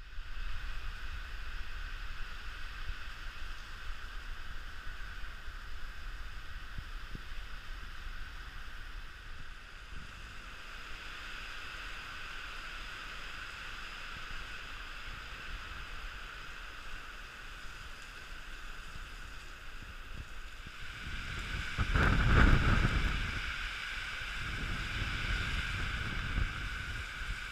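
Heavy typhoon rain falling steadily, a continuous hiss, with gusts of wind buffeting the microphone: a loud rumbling gust about three quarters of the way in is the loudest part, and more gusting follows near the end.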